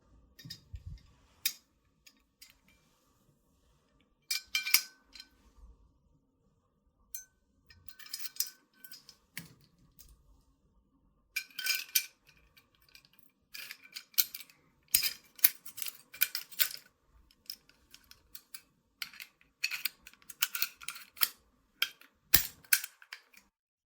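Parts of a toy M1911 gel blaster clicking and clattering as they are handled and fitted together by hand: scattered sharp clicks and short bursts of rattling, with brief pauses between them.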